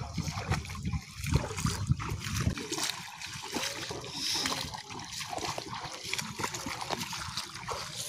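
Feet wading through shallow water, with repeated splashing and sloshing at each step.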